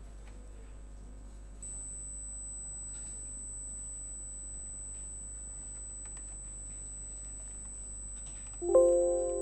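Steady low electrical hum with a faint high-pitched whine and a few faint clicks. Near the end a loud pitched chord starts suddenly and rings down as music begins.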